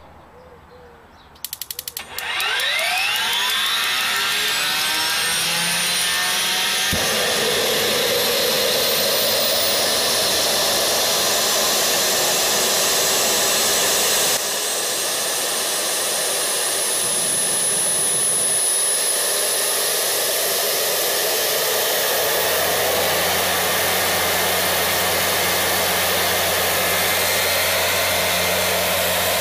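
Williams WR27 aircraft APU gas turbine starting: a quick run of clicks, then a whine climbing steeply in pitch as it spools up, settling into a steady high whine and rush. About two-thirds of the way through, a steady low hum sets in: the load compressor stalling because its air bleed is closed off.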